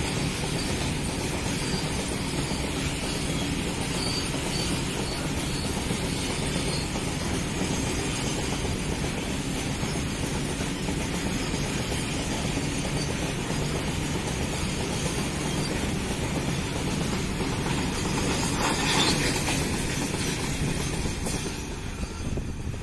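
Loaded covered cement hopper wagons of a freight train rolling past, a steady running noise of steel wheels on rails. The noise swells briefly a little past three-quarters of the way through, then falls away near the end as the last wagons pass.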